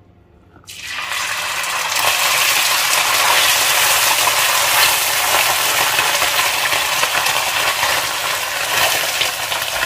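Shredded steamed tuna frying in hot oil in a pan: a sizzle that starts just under a second in, builds over about a second, and then stays loud and steady.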